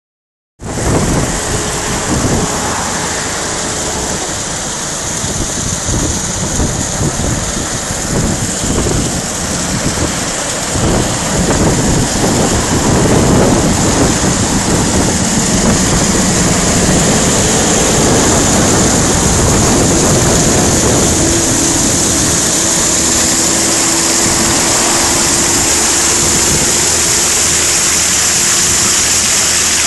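Spring water pouring off a rock ledge in a small cascade into a concrete basin, splashing loudly and steadily. It grows a little louder and steadier about halfway through.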